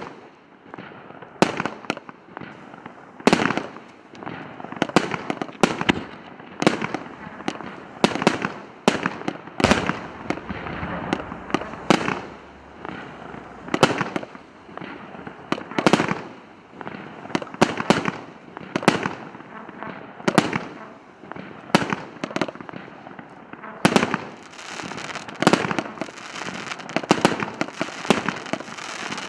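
A 100-shot, 1.25-inch (32 mm) calibre firework battery firing shot after shot: sharp bangs come about one or two a second, with crackling in between.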